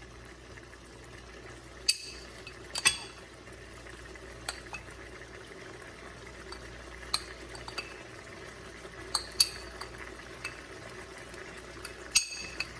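A cooking spoon clinking and knocking against a pot of chicken in liquid while it is stirred, in scattered sharp clinks, over a steady low hum.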